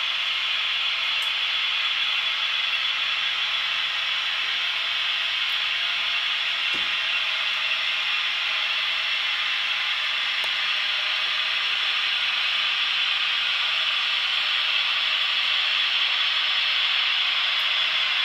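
Märklin H0 model Swiss electric locomotives running with their ESU sound decoders, giving a steady hiss that grows slightly louder toward the end.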